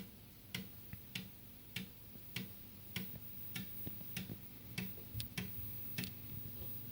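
Amiga 1000 internal 3.5-inch floppy drive ticking steadily as it reads the Kickstart 1.3 disk, about one sharp tick every 0.6 seconds with fainter clicks between.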